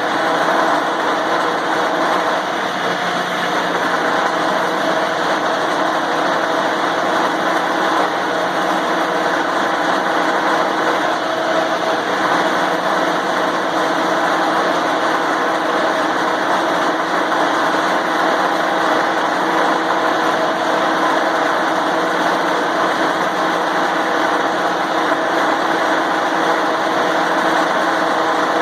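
Grinder motor running steadily, its grinding wheel pressed against a snowblower tire to spin the tire up to speed so the Fix-A-Flat sealant inside spreads and seals the leak. The wheel scuffs small pieces of rubber off the tread.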